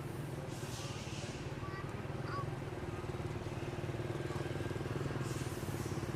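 A motor engine running steadily with a low, pulsing drone, with a few faint short chirps above it.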